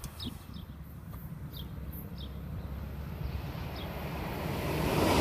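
A SÜWEX electric multiple unit approaching on the track, its running noise growing steadily louder. A few short, high bird chirps sound over it.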